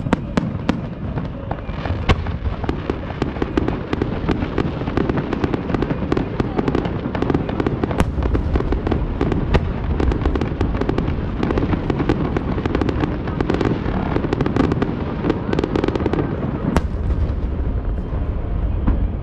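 Fireworks going off: dense, continuous crackling and popping with a few sharper, louder bangs, thinning out near the end.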